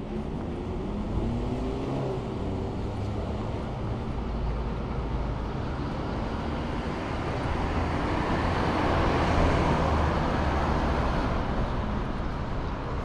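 A motor vehicle drives past on the street, its noise building to a peak about nine to ten seconds in and then fading.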